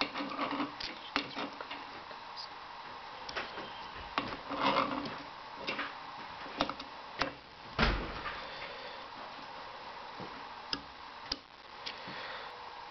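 Scattered clicks and knocks of a hand tool working a nut on a stud of a Woodmaster planer molder's drum sander hood, with one heavier knock about eight seconds in.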